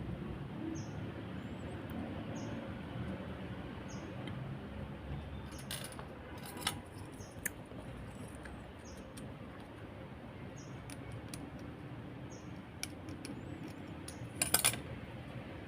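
Steady background hiss with a few sharp clicks and a short burst of clicking about fourteen and a half seconds in; faint short high chirps repeat about once a second.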